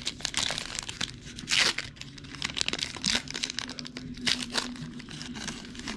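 Foil trading-card pack wrapper being torn open and crinkled, a run of irregular crackling rips.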